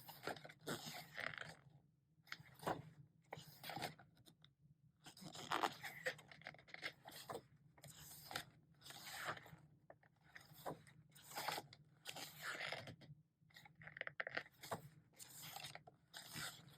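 Glossy pages of an album photo book being turned and handled, a papery swish or rustle about once a second.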